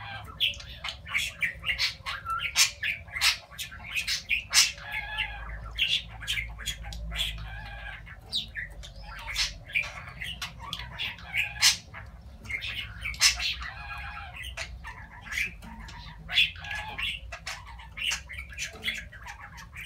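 Budgerigar warbling and chattering without a break, a fast run of sharp clicks, squawks and short warbled phrases.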